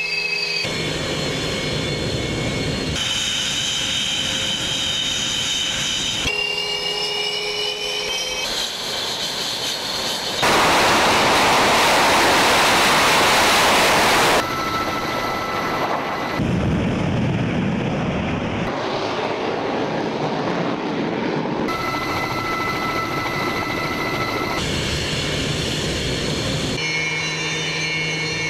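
Su-33 fighter jet engines on a carrier deck, whining and running in short clips that change abruptly every few seconds, with a louder roar lasting about four seconds near the middle.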